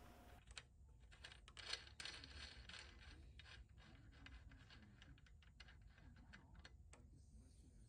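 Faint, irregular clicks and light scraping of a steel hex nut being spun by hand onto freshly cut threads on a steel screw, with one slightly louder click near two seconds in.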